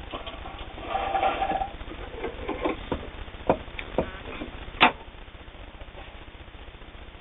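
Janome New Home Double Duty sewing machine stitching briefly about a second in, then a few sharp clicks and knocks, the loudest near five seconds in.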